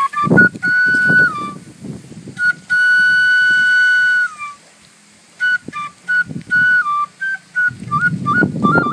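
A simple melody played one note at a time in a high, pure tone, like a flute or whistling. It holds one long note about three seconds in, then moves on in short quick notes, with irregular bursts of low noise underneath.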